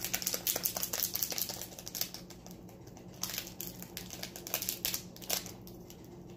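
Pink glitter being poured and tapped out of its plastic container into slime: a quick run of small ticks and taps, thickest in the first couple of seconds, then sparser.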